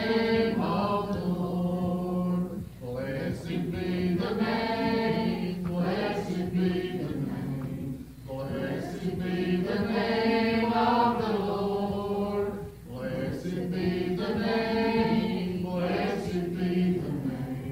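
A man singing slow, chant-like phrases with long held notes, each phrase several seconds long with short breaks between them.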